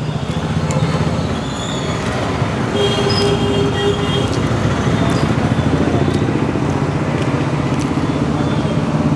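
Steady, loud low rumble of background noise with a few faint ticks, growing a little louder over the first second.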